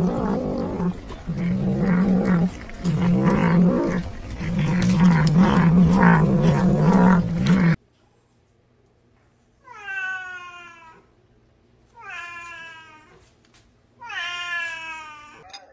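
A cat's loud, low, wavering yowling in four long stretches, cut off suddenly about eight seconds in; then three separate cat meows, each about a second long and falling in pitch.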